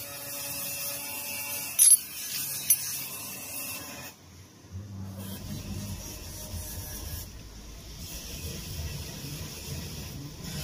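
Handling noise from metal diesel injection pump parts being reassembled: light rubbing and two sharp metallic clicks about two seconds in. A low rumble runs underneath from about halfway on.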